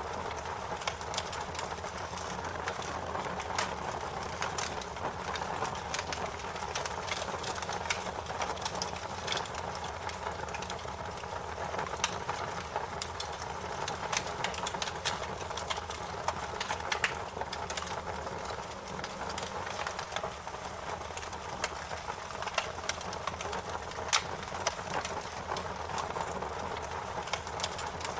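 Fire crackling: a steady hiss and low rumble with frequent sharp pops and snaps at irregular intervals.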